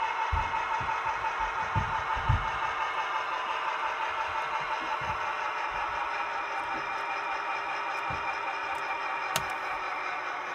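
Model diesel locomotive's onboard engine sound running steadily from its small speaker, a drone with a fast pulse in it. A few low knocks early on and a sharp click about nine seconds in.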